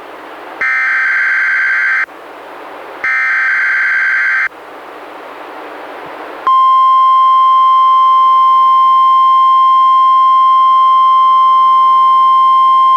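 NOAA Weather Radio Required Weekly Test through a Reecom R-1630 weather radio. First come two bursts of the SAME digital header, a buzzing data screech of about a second and a half each, with radio hiss between them. About six and a half seconds in, the steady 1050 Hz weather radio warning alarm tone begins and holds.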